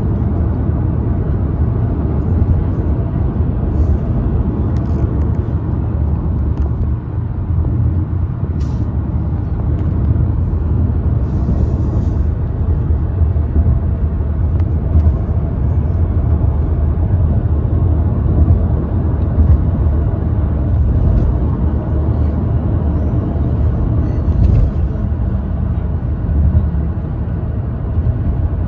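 Steady low rumble of road and engine noise inside a moving car's cabin, with a few faint ticks scattered through it.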